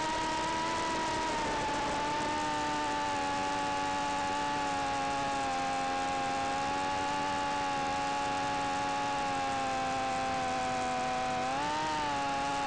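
The Tinyhawk 2 Freestyle micro FPV quadcopter's brushless motors and propellers whining steadily in flight. The pitch drops a little about two seconds in and wavers up and down briefly near the end as the throttle changes.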